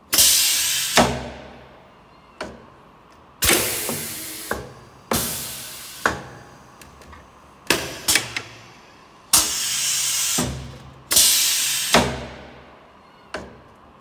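Pressta Eisele Presta 1800 pneumatic corner crimping machine cycling: repeated bursts of compressed-air hiss, each fading over about a second, with sharp metal clunks between them as the clamps, corner support and crimping tools move and strike.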